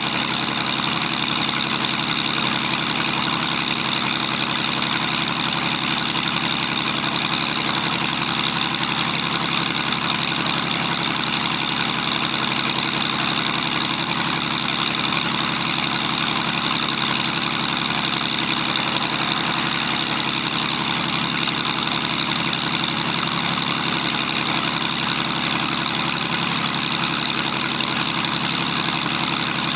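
Zlin Z-526 F's Walter M137A inverted six-cylinder air-cooled engine running steadily on the ground with the propeller turning, during the engine check before take-off.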